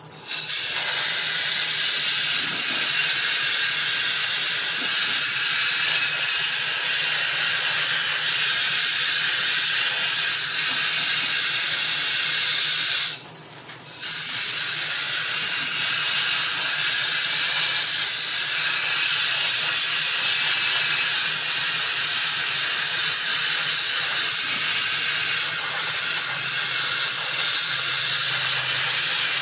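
Compressed-air blow gun hissing steadily as it blows across wet poured epoxy to move the colours. It cuts out for about a second partway through, then starts again.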